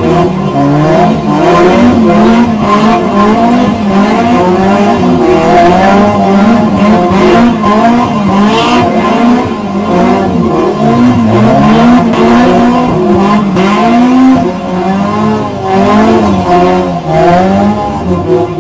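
Car engines revving hard, their pitch rising and falling over and over as the cars spin donuts, with tyres squealing and skidding under wheelspin.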